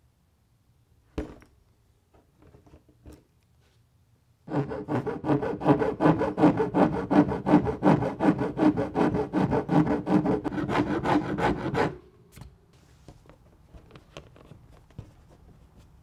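A round hand file rasps back and forth along the edge of a hole just cut in a plastic car bumper cover, with rapid, even strokes for about seven seconds, trimming the rough cut edge. Before the filing there are a few light clicks and scratches, and afterwards quiet handling.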